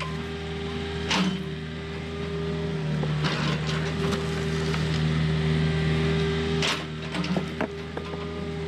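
Volvo compact excavator's diesel engine running steadily while the arm and bucket work a pile of soil, with the hydraulic hum getting louder from about three seconds in until just before seven. A few short knocks come along the way.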